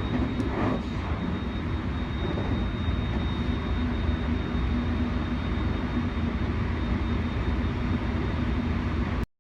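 Electric train running: a steady low rumble with a steady hum and a thin high whine over it, cutting off suddenly near the end.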